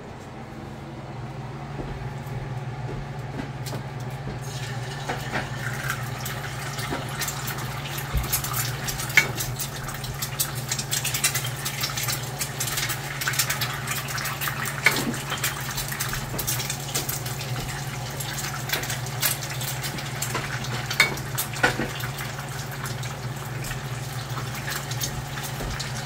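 Eggs frying in hot oil: a steady sizzle with many scattered sharp pops, building up over the first few seconds, over a steady low hum.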